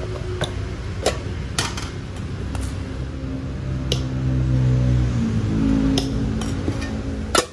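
Metal spoon clinking against an enamel mug and a steel bowl while scooping minced meat filling, a series of sharp, irregular clicks over a steady low background hum that swells in the middle.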